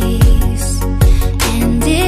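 Background music: an electronic track with sustained synth tones over a deep kick drum that lands about every 0.8 seconds.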